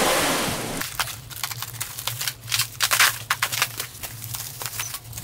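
A loud hiss cuts off under a second in, then scattered sharp clicks and clinks of metal parts and tools being handled during exhaust removal, over a low steady hum.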